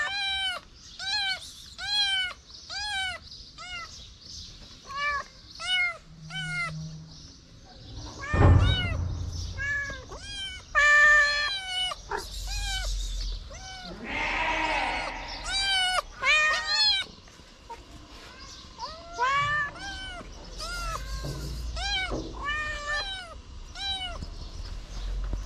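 Kittens meowing over and over, short high-pitched meows coming about once a second, now and then two cats overlapping. A low thump of handling is heard about eight seconds in.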